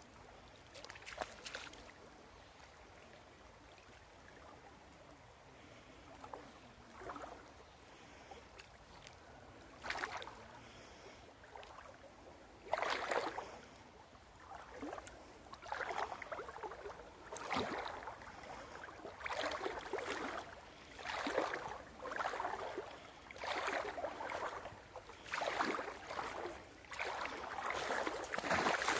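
Wading through shallow muddy floodwater: a few scattered splashes at first, then regular sloshing steps about one a second from roughly halfway through.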